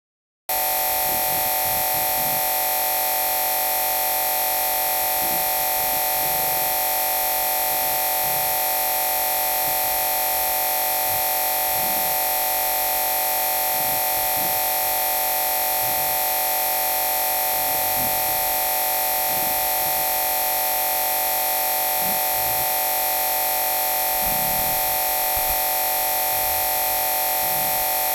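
Loud, steady electronic buzz and hiss, a dense mass of fixed tones with a strong hum band around 900 Hz, cutting in abruptly about half a second in. It is a corrupted audio track: the phone's original sound was lost and replaced by this noise.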